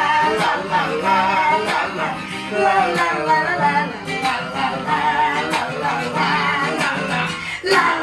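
Acoustic guitar strummed steadily while a woman and a man sing along.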